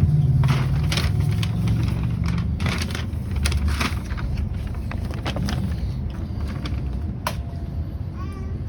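Geneva tram running along its rails: a steady low rumble with scattered clicks and knocks, and a motor hum that fades after the first two or three seconds.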